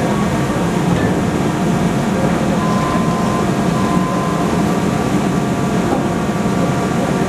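Steady rumbling running noise of a train, with a faint thin high tone briefly in the middle.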